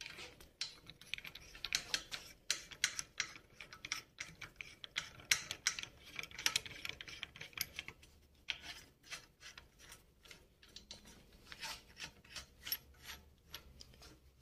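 Metal clicking and scraping as a bushing puller's threaded rod, nut and cups are fitted and turned on a motorcycle swingarm, to pull out its worn swingarm bushings. Many irregular small ticks, with a brief lull about eight seconds in.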